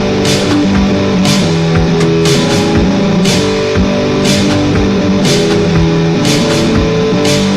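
Loud, dense electronic noise/industrial music made on a synthesizer and sequencer. Sustained low tones are layered thickly, with a noisy crash-like hit about once a second.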